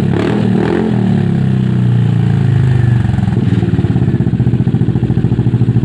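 Kymco Xciting S400 scooter's single-cylinder engine running through an aftermarket sport muffler during a sound check. It runs smoothly at first, then about halfway through settles into a fast, even pulsing idle.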